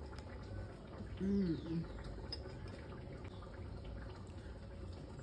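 A woman's short closed-mouth "mmm" while chewing a mouthful, rising then falling in pitch, about a second in, over a low steady background rumble.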